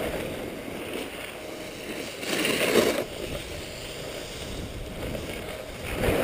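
Skis sliding over packed snow with a steady hiss, and wind buffeting the microphone. The sliding swells louder for about half a second a little before halfway through.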